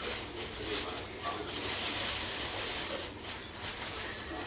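Clear plastic bag crinkling and rustling as it is handled and opened, in irregular crackly bursts, busiest between about one and a half and three seconds in.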